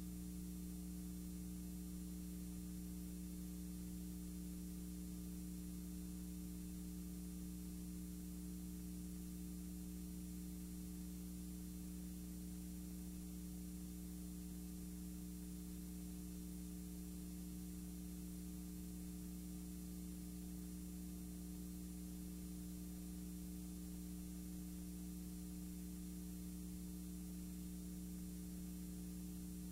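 Steady electrical hum with a faint hiss, unchanging throughout, with no other sound over it.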